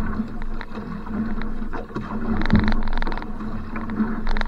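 Water rushing and splashing along a one-person va'a outrigger canoe as it is paddled hard at sprint pace. The noise swells and fades unevenly with the paddle strokes.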